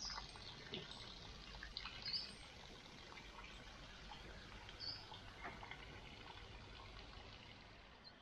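Faint outdoor background with a few short, high bird chirps, each two to three seconds apart.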